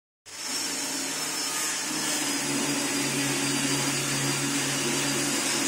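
Porang slicing machine running: a steady electric-motor hum with a thin high whine, cutting in abruptly just after the start.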